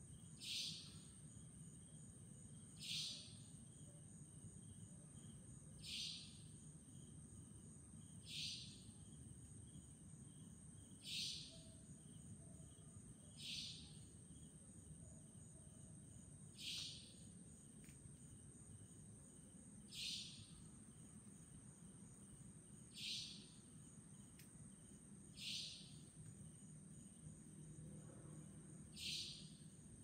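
Savanna nightjar calling: a short, sharp, high-pitched note repeated about every two and a half to three seconds, eleven times in all.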